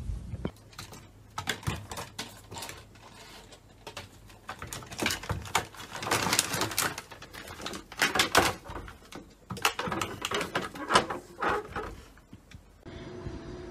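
Plastic cat flap rattling and a bag of cat treats crinkling, in uneven bursts of clattering and rustling.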